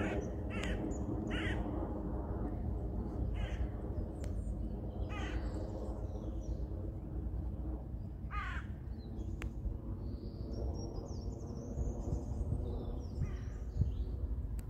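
Steady low drone of a jet airliner descending overhead. A bird calls about six times over the first nine seconds, and small birds chirp faintly near the end.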